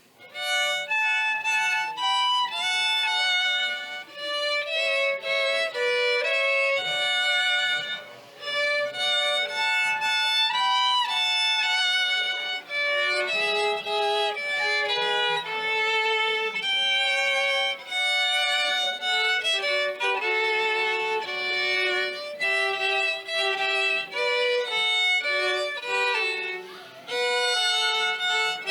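Solo violin playing a slow melody of separate held notes with vibrato, pausing briefly about eight seconds in.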